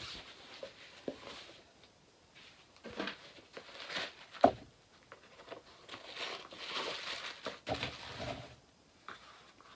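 Tissue paper rustling and crumpling in several short spells as the stuffing paper is handled inside a new loafer, with one sharp tap about four and a half seconds in.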